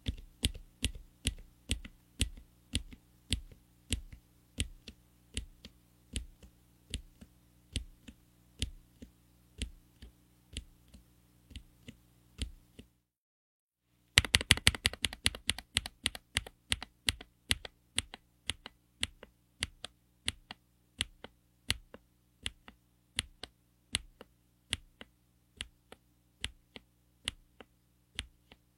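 A regular series of sharp clicks, about two to three a second, over a faint steady low hum. The clicks stop for about a second near the middle, then come back faster before settling into the same pace.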